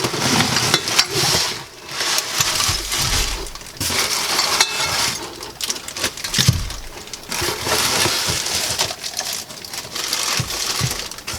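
Cardboard and plastic packaging rustling and crinkling as parts are pulled out of a box, with scattered small knocks and clicks.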